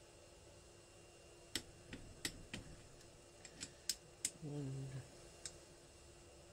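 Sharp metallic clicks from a click-type torque wrench and its ratchet as the cylinder head nuts on a 50cc two-stroke engine are tightened, scattered irregularly over a few seconds, with a brief low hum of a man's voice in the middle.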